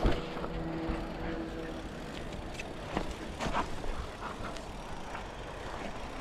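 Mountain bike riding fast down a rocky dirt trail: a steady rush of tyre and riding noise with sharp knocks and rattles as the bike hits rocks and drops, loudest right at the start and again around three seconds in. A faint steady hum sits under it for the first couple of seconds.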